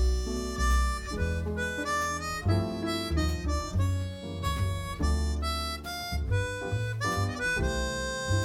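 Background music: a reedy lead melody over a bass line.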